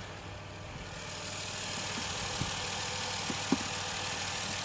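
A 2010 Chrysler Town and Country's V6 engine idling steadily with the hood open, with a couple of faint clicks about two and a half and three and a half seconds in.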